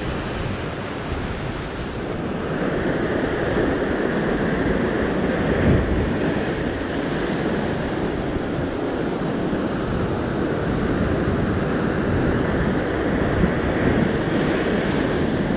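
Ocean surf surging and breaking against rock ledges: a steady rushing wash of water that grows a little louder about two seconds in.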